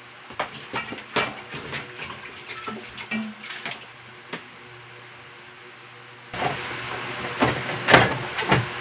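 Kitchenware and a board knocking and clattering as they are handled on a kitchen counter. About six seconds in, a tap starts running into the sink with a steady rush of water, more knocks over it.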